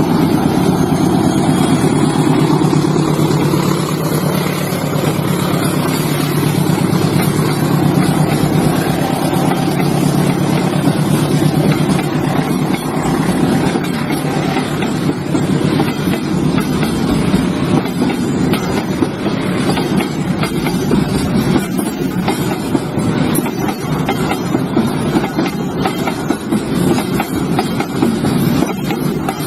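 Train running along the rails: a steady loud rumble with many sharp clicks and knocks of the wheels over the track, which come more often in the second half.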